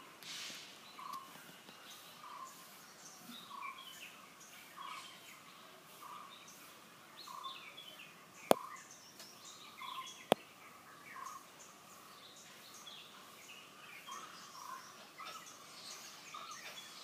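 Birds calling outdoors: one bird repeats a short low note over and over, about every three quarters of a second, while others chirp higher. Two sharp clicks come about two seconds apart near the middle.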